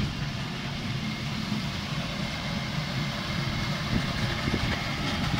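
Ride-on miniature railway train running along its track: a steady low engine hum with wheel and rail noise.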